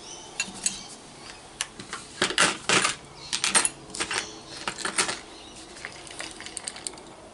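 Metal casting lures and small plastic tackle boxes being handled and set down on a table: a scattered run of sharp light clinks, clicks and taps, busiest in the middle and thinning out near the end.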